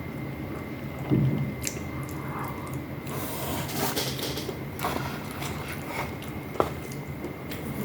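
Someone chewing and eating close to the microphone, with scattered small clicks and a louder low bump about a second in, over a steady faint hum.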